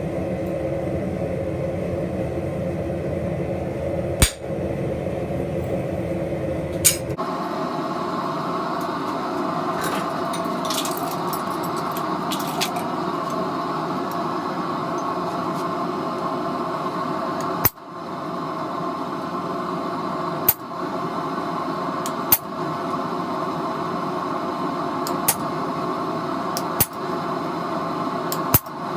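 Steady mechanical hum of a running machine, made up of several steady tones, whose sound changes abruptly about seven seconds in. Several short, sharp clicks are spread through it.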